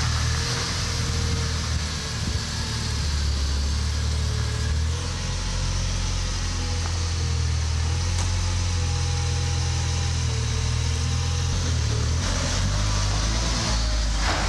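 Polish Żuk van's swapped-in ZMZ-405 fuel-injected four-cylinder petrol engine running steadily as the van drives slowly by at low speed.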